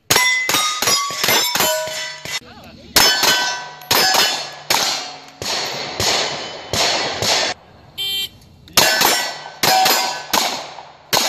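Rapid gunfire from a pistol-caliber carbine in quick strings, about two dozen shots, each followed by the ringing clang of a struck steel plate target, with short pauses between strings.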